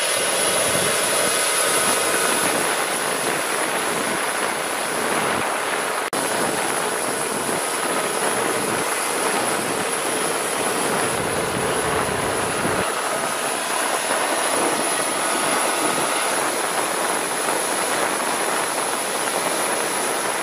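CH-53K King Stallion heavy-lift helicopter running on the ground: a steady, high-pitched whine from its turboshaft engines over a loud, even rush of engine and airflow noise.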